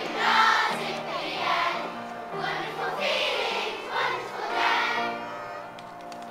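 Large group of primary school children singing together, accompanied by an upright piano. The singing grows quieter toward the end.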